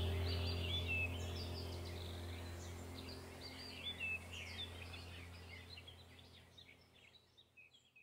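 Small birds chirping and twittering over a low, steady sustained drone, the whole soundtrack fading out steadily.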